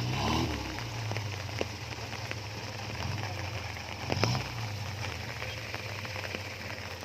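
Suzuki Jimny's swapped-in carburetted Vitara engine running under load, revving up at the start and again about four seconds in, over a steady crackling hiss.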